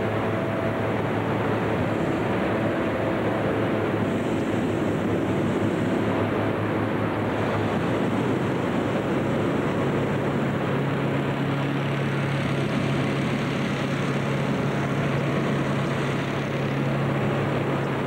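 Many hot-air balloon inflator fans running together: a steady, unbroken rush of air with a low engine hum under it, the hum's pitch stepping up about ten seconds in.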